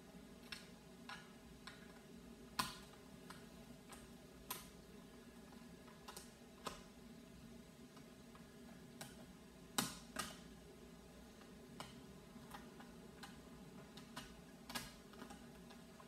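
Hand screwdriver driving small screws into the plastic body of a toy RC car: irregular light clicks and taps as the screws turn and the car is handled. A sharper knock comes about two and a half seconds in and another about ten seconds in.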